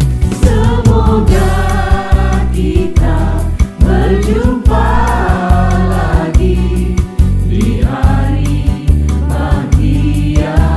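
A Hari Raya song: a group of voices singing together over a backing band with a steady drum beat and bass.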